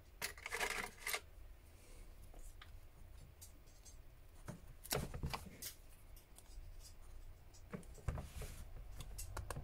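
Thin metal pry tool and plastic opening pick scraping and clicking along the seam of a smartphone's glued back cover as it is worked loose, in short scratchy strokes and sharp clicks that come in clusters, with a quick run of clicks near the end.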